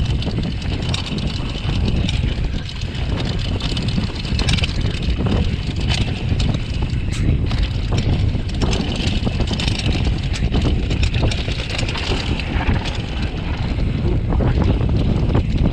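Downhill mountain bike descending a dry dirt trail: wind rumbles heavily on the camera's microphone, the tyres crunch over dirt and loose stones, and frequent rattles and knocks come from the bike over the bumps.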